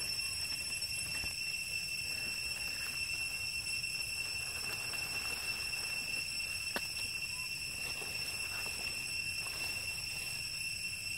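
Steady high-pitched drone of forest insects, unbroken throughout, with a single sharp click about seven seconds in.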